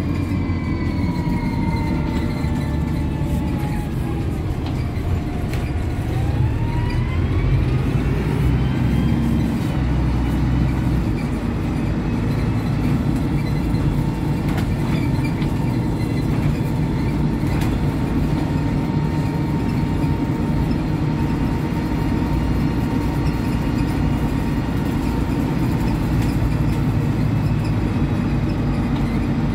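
Interior of an MAN 18.220 single-deck bus on the move: the six-cylinder diesel and drivetrain rumble steadily under a whine. The whine falls in pitch as the bus slows over the first few seconds, then rises as it picks up speed again, and holds steady while cruising.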